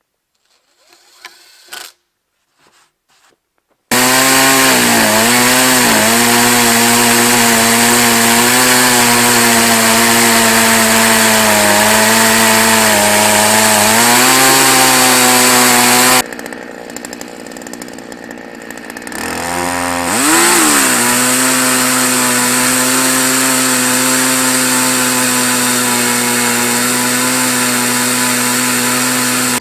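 Two-stroke chainsaw in a chainsaw mill running at full throttle, ripping a log lengthwise into a board. The pitch sags briefly a few times as the chain bogs in the cut. About 16 seconds in the sound drops away suddenly, then the saw revs up again and runs flat out to the end.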